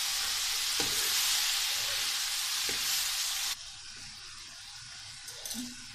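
Meat, tomatoes and green chillies sizzling as they are fried down (bhuna) in a metal wok, with a steel spoon scraping the pan a couple of times. The sizzle drops to a quieter level about three and a half seconds in.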